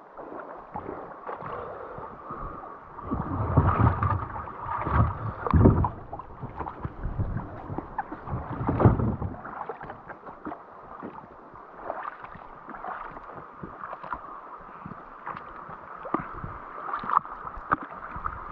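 River water splashing and sloshing as people wade through and a kayak is pushed along. Many small splashes, with louder, deeper sloshes about three to six seconds in and again near nine seconds.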